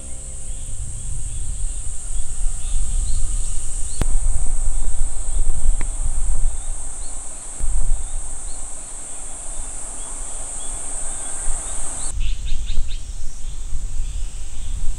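Outdoor ambience among trees: a steady high-pitched insect drone, scattered bird chirps, and gusty wind rumbling on the microphone. The insect drone cuts off suddenly about twelve seconds in, and a short run of bird calls follows.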